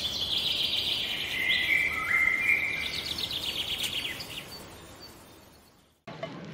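Birdsong: clear whistled notes that jump between pitches, then a rapid trill, fading away near the end. A low steady hum cuts in just before the end.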